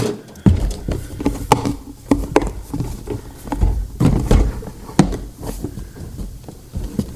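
A large cardboard game box being forced open by hand: irregular knocks, clicks and scrapes of cardboard as the tight lid is worked loose.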